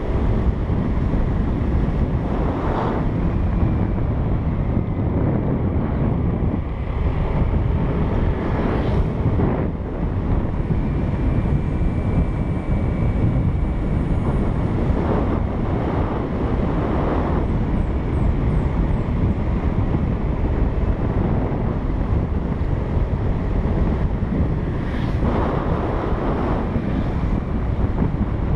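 Wind buffeting the microphone on a moving motor scooter: a steady, heavy low rumble.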